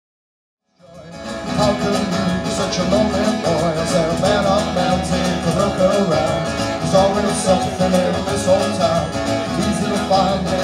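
A live band playing the instrumental opening of a song, with guitar prominent. The music starts about a second in and swells quickly to full level.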